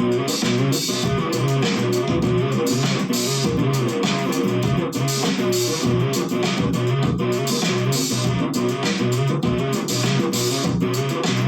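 Electric bass guitar played through a Zoom GM-200 multi-effects unit on a punk-funk patch: a steady, busy run of short plucked notes.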